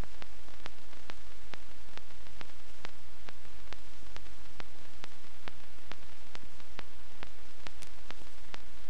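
Steady hiss and low hum with faint ticks about two and a half a second: noise from the transfer of a silent 16mm film, with no recorded sound of the action.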